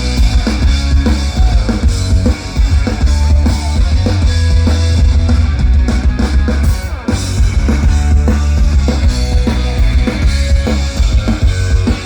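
Live rock band playing an instrumental passage: a full drum kit with kick and snare over a heavy bass and guitars, loud and driving, with a brief dip about seven seconds in.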